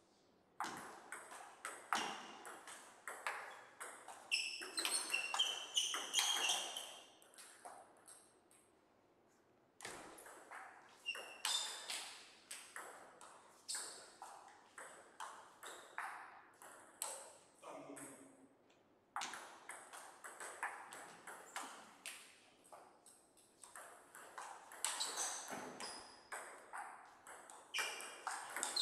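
Table tennis rallies: the plastic ball clicking sharply off the paddles and the table in quick alternation, in three runs of play with short pauses between points.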